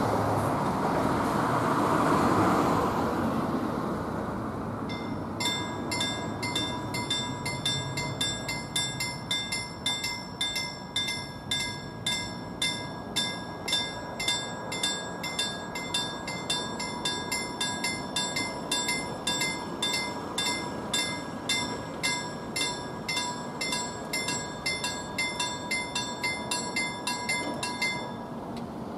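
A car passes over the first few seconds. About five seconds in, the level crossing's warning bell starts ringing in rapid, even strokes while the barriers lower, and it stops near the end once they are down.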